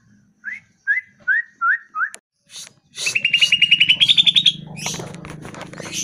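Green leafbird (cucak ijo) singing: five short notes that each slide upward, then a fast trill that climbs in pitch and is the loudest part. A noisier background with a low hum follows near the end.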